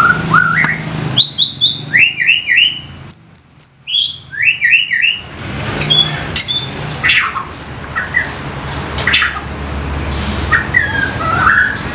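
White-rumped shama singing loud, rapid phrases of short up-slurred whistles and chirps, with one held high whistle about three seconds in, then sparser sharp notes.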